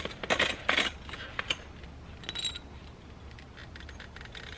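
Hand tools working on metal on an ATV engine while the stator cover bolts are loosened: a quick run of clicks and rattles in the first second, then scattered light clicks and a short ringing metal clink.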